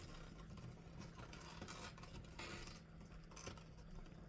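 Faint rustling and scratching of hands handling gift packaging, with a few light clicks.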